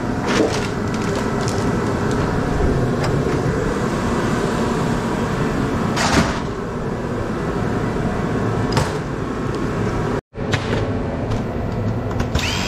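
A shop heater's blower running steadily, with a few sharp knocks. The sound drops out for an instant about ten seconds in.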